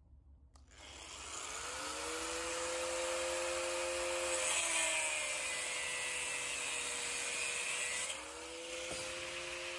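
Electric power tool spinning up about a second in. Its pitch sags for about three seconds under load while a harsh hiss comes in, then rises again as the load comes off.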